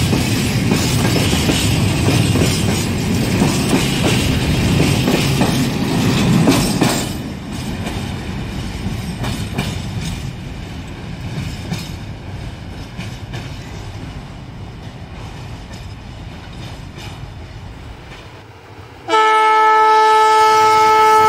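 Freight train of open-top wagons passing close by, the wheels clattering over rail joints; after about seven seconds the noise drops and fades as the end of the train draws away. About 19 seconds in, a locomotive horn starts suddenly, loud, a chord of several steady tones held to the end.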